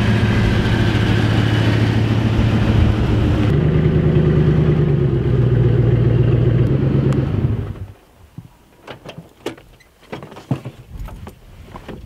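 Ford pickup truck's engine running steadily, shifting to a slightly higher pitch about three and a half seconds in, then switched off about eight seconds in. After it, a scattered series of light clicks and knocks as the driver's door is opened.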